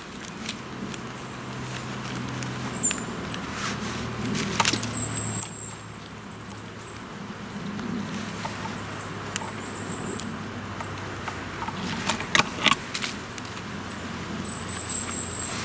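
Fresh bramble canes rustling, creaking and clicking as they are bent by hand and woven over one another into a basket rim, with a few sharper cracks. A steady low hum runs underneath.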